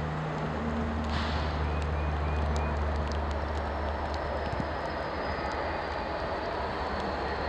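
Norfolk Southern freight train passing: the diesel locomotives' low engine rumble, which fades after about four seconds as the freight cars roll by with steady wheel noise and scattered clicks. A faint high whine that slowly falls in pitch comes in over the second half.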